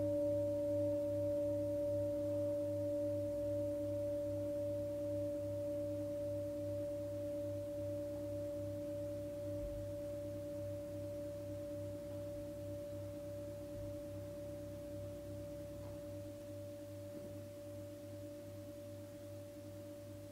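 Meditation bell ringing on after being struck, several clear steady tones sounding together, with a slow regular wobble in the lowest one, fading gradually.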